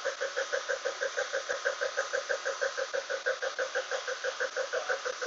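1998 BMW E36 328i's 2.8-litre straight-six engine running with a steady, rhythmic knock of about seven beats a second; this is the engine knocking that the owner is asking for help with.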